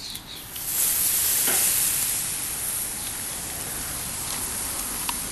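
Vinegar-marinated chicken sizzling on a hot grill grate. A loud hissing sizzle starts suddenly about a second in and eases after a second or so to a steady sizzle.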